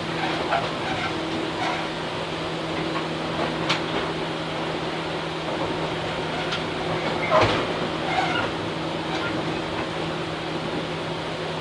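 Tobu 8000 series electric train running between stations, heard from inside the car: a steady hum from the running gear under the rumble of the wheels, with a few sharp clicks as the wheels pass rail joints, the loudest about seven seconds in.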